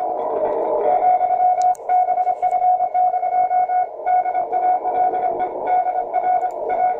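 Amateur radio Morse code (CW) signal: a single pitched tone keyed rapidly on and off in dots and dashes, with short pauses between groups about two and four seconds in, over a layer of receiver band noise.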